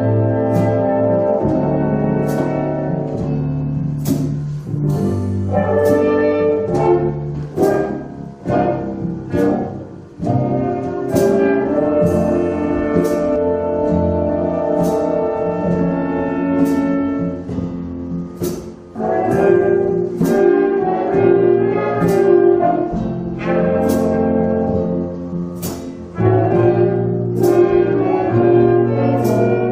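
Big band playing jazz: muted trumpets and trombones holding sustained chords in phrases over electric guitar and upright bass, with sharp percussive strokes and brief dips in level between phrases.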